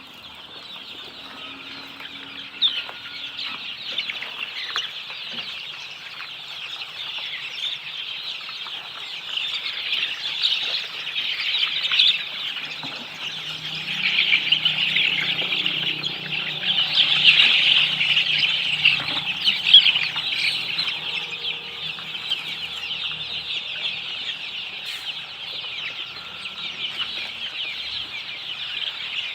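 A flock of desi chickens calling all at once, a dense continuous chatter of high clucks and peeps, loudest in the middle and easing off towards the end.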